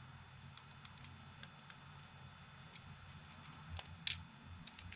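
Faint, scattered small plastic clicks and ticks from handling an opened Xbox controller, its bare analog stick shafts being moved around to check they move freely. A slightly louder click comes about four seconds in.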